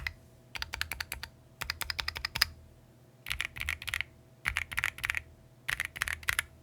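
Keychron Q15 Max ortholinear mechanical keyboard being typed on in five quick bursts of rapid keystrokes, with short pauses between them.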